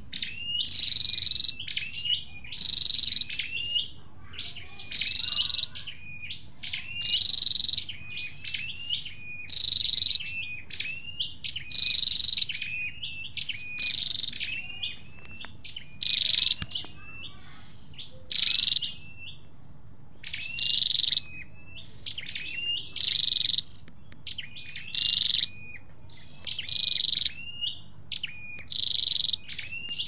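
Tailorbird (the bird Vietnamese keepers call 'sâu đầu đỏ') singing its loud, high-pitched song. The phrases repeat about every two seconds with shorter notes in between, in the manner of a male's territorial contest song.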